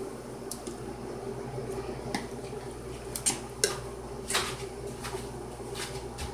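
A metal ladle clinking and knocking against a stainless steel pot while stirring thick meat sauce: a handful of sharp clinks, the loudest pair about three and a half seconds in, over a steady hum.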